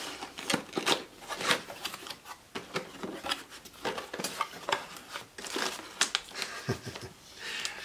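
A cardboard box being opened by hand: flaps pulled open and the paper and packing inside handled, making a run of irregular scrapes, taps and rustles.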